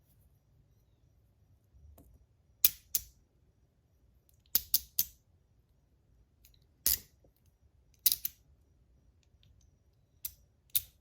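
Sharp metal clicks of a copper tank fidget's parts being handled and knocked together, about ten in all, some coming in quick pairs and threes.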